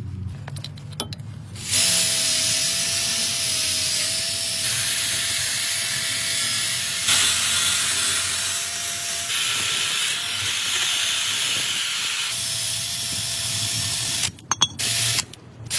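Long, steady hiss of a spray or air jet with a faint steady whistle underneath. It starts about two seconds in and stops about a second before the end, typical of brake cleaner or compressed air being blown over the brake parts.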